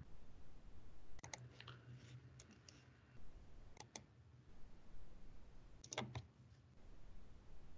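Faint, scattered clicks of a computer mouse and keyboard: a handful of separate clicks, with a louder pair about six seconds in.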